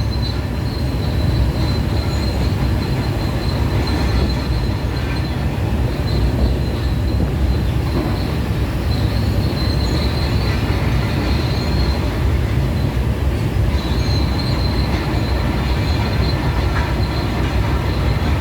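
Heavy excavator working at demolition: a steady low engine rumble with a high, thin metallic squeal that comes and goes several times.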